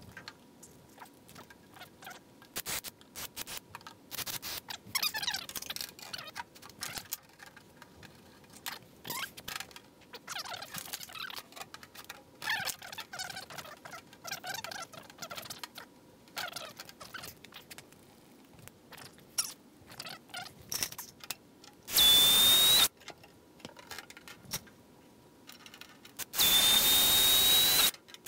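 Aluminium battery box and firewall parts being handled, with scattered clicks, rattles and a few squeaks. Near the end, a cordless drill runs twice, a second and about a second and a half, with a steady whine, drilling holes through the aluminium firewall for the battery bracket.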